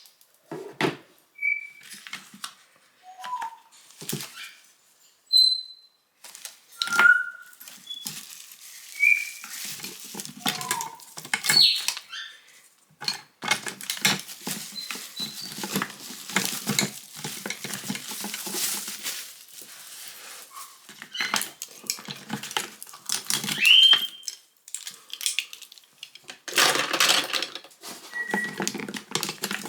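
Irregular clicks, knocks and clatter of small objects being handled, with several brief high chirps or squeaks scattered through, one near the end gliding upward.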